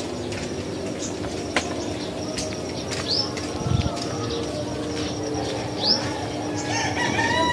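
Backyard birds calling, short rising high chirps every few seconds, with a low thump near the middle. Near the end a rooster starts crowing.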